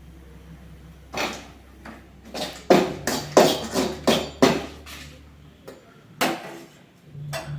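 Metal utensil knocking and scraping against a cooking pan in a string of about ten clattering strokes, over a low steady hum that stops about six seconds in.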